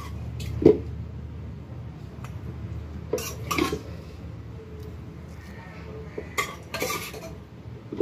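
A metal utensil clinking and knocking against a cooking pot a handful of separate times while meat curry is layered over rice for biryani.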